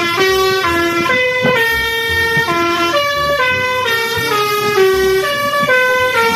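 Multi-tone telolet bus horn playing a melody: a continuous run of loud pitched notes, each held about a third to half a second before stepping up or down to the next.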